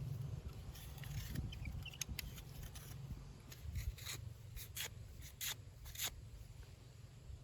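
Short scattered scrapes and clicks from camping gear being handled, over a steady low rumble.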